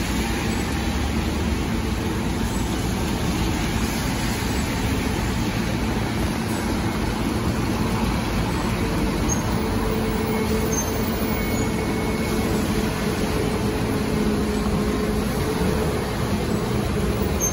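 Scania K230UB city bus's diesel engine idling at the stop, then pulling away. A higher steady tone comes in about nine seconds in and holds as the bus moves off, over a steady wash of road noise.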